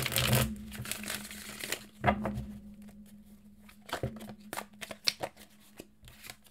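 A deck of tarot cards being shuffled: a dense, fluttering rustle of cards running together for about two seconds, with a short burst just after. Then come lighter scattered card flicks and taps as the cards are shuffled hand over hand and one is laid down.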